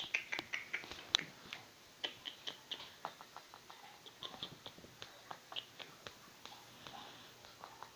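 A rat gnawing and chewing food, heard as a quick, irregular run of small crisp clicks, several a second, loudest and thickest in the first second or so.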